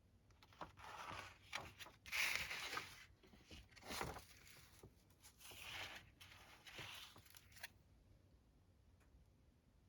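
Paper pages of an owner's manual being turned and handled: a series of soft rustling swishes, the loudest about two seconds in, dying away near the end.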